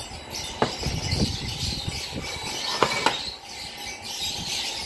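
A few sharp clinks of a utensil against a glass or bowl, as the dalgona coffee mixture is beaten by hand, with faint bird chirps behind.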